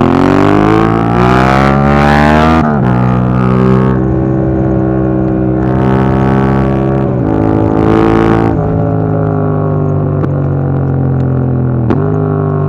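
Yamaha MT-07's 689 cc parallel-twin engine through an Akrapovic Racing Line exhaust with its dB killer fitted, heard while riding. It revs up under acceleration for nearly three seconds, then drops in pitch at an upshift. It holds steady, rises again around seven to eight seconds in and drops at another shift, then runs fairly steady with a brief dip near the end.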